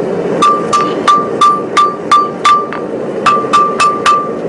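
Hand hammer striking red-hot 4140 steel on an anvil while forging the peen of a cross peen hammer head. The blows come about three a second, each with a short bright ring: a run of eight, a brief pause, then four more.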